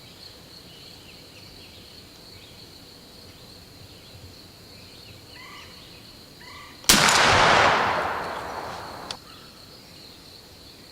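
A single shotgun blast fired at a wild turkey gobbler about seven seconds in, loud and sudden, its echo fading over about two seconds. Underneath, a steady high insect drone.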